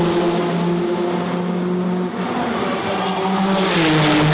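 Turbocharged race car engine running hard at high revs, a steady loud note that steps down in pitch once near the end.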